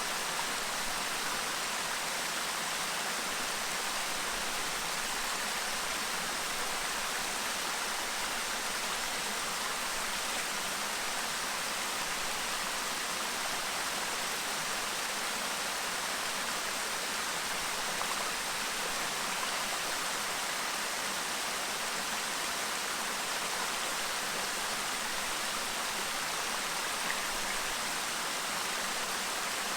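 Clear shallow stream babbling steadily over rocks, a constant even rush of water.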